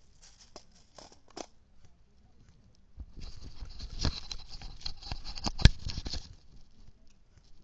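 Scattered light clicks, then about three seconds of dense rustling and crackling with one sharp, loud snap near the end of it.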